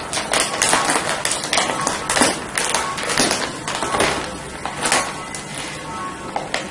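Foil chip packets crinkling and rustling as they are handled and set down on a table, with many irregular crackles throughout.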